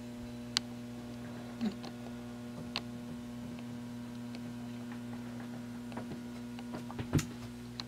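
Steady electrical hum with several overtones, broken by a few faint, scattered clicks.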